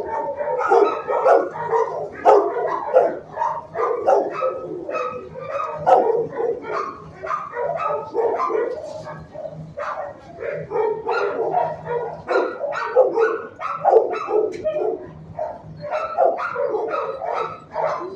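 Shelter dogs in their kennels barking without pause, many short barks overlapping, with an occasional higher yip.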